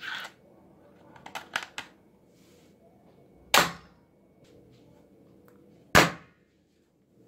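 Plastic toy dart guns firing suction-cup darts: some light plastic clicks, then two sharp snapping shots about two and a half seconds apart, the first from a toy rifle and the second from a toy pistol.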